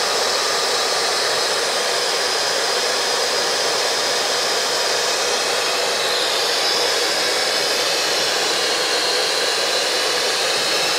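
Two hair dryers blowing at once, one on full and one on a low setting: a loud, steady rush of air.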